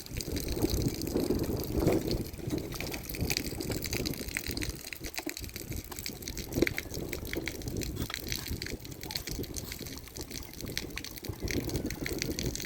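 Heavy rain falling, a steady rush of water with many small sharp drop impacts.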